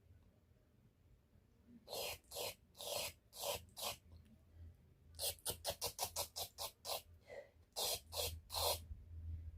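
Wet mouth smacking and slurping noises made by a person imitating a cat licking itself. They come in short groups: four smacks, then a fast run of about five a second, then three more near the end.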